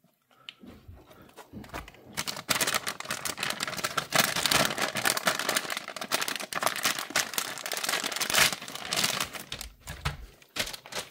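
Plastic and foil MRE packaging crinkling and rustling as the heated food pouches are pulled out of the flameless ration heater bag. It starts after a quiet first second and is busiest in the middle, thinning out near the end.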